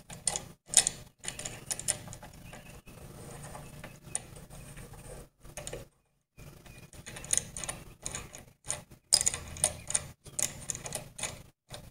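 Threaded steel adjustment rod and wing nut under a table-saw outfeed table being turned by hand to set the table's height: irregular small clicks and ticks, busiest at the start and again in the second half, with a short break a little past the middle.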